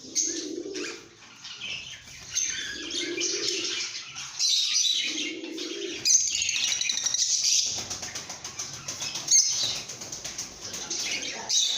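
A flock of lovebirds chirping and chattering shrilly without a break, with a fast rattling chatter in the second half. Under it, a low cooing call of about a second repeats three times in the first half, about every two and a half seconds.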